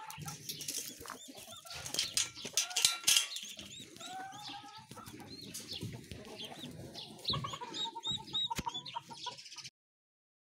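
A mother hen's brood of small chicks peeping in many short, high chirps, with the hen clucking low now and then. It cuts off suddenly near the end.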